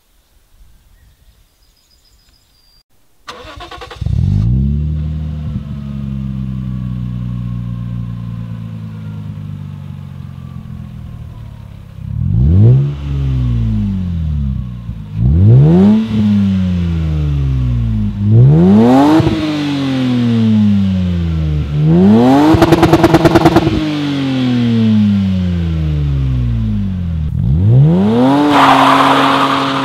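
Lexus IS200's 2.0-litre straight-six running through a Cobra Sport resonated cat-back exhaust. It starts about three seconds in and settles from a high idle, then is revved sharply five times from idle, one rev held high for about two seconds.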